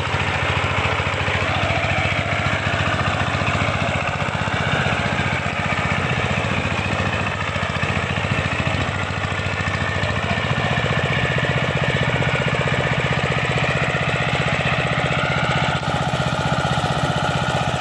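Single-cylinder diesel engine of a walking power tiller running steadily with a fast, even firing beat, while the tiller is stuck in deep paddy mud.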